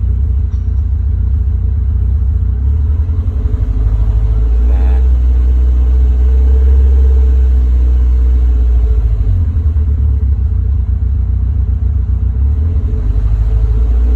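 Car engine idling roughly at operating temperature, a loud, uneven low rumble that surges and sags every few seconds.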